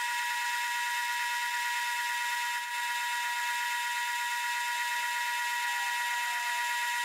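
Boring bar cutting inside a mild steel bore on a 12-inch Atlas metal lathe, giving a steady high-pitched whine.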